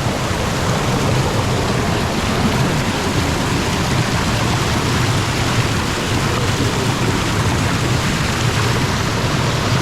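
Waterfall crashing into a pool: a loud, steady rush of falling water that does not change.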